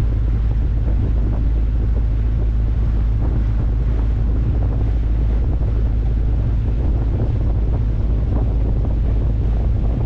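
Wind buffeting the microphone of a motorboat under way, over a constant low rumble and the wash of water along the hull.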